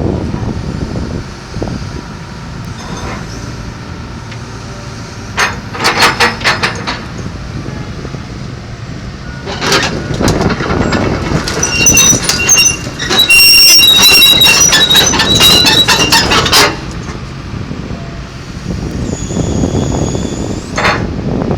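John Deere 225D LC excavator's diesel engine running, with a run of sharp metallic clanks around six seconds in and a loud stretch of clanking and high-pitched metal squealing from about ten to sixteen seconds in.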